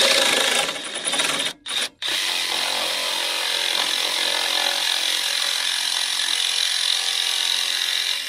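Jigsaw cutting into a baseboard, back-cutting the excess behind a 45° miter. It starts abruptly, stops twice briefly about a second and a half in, then runs steadily.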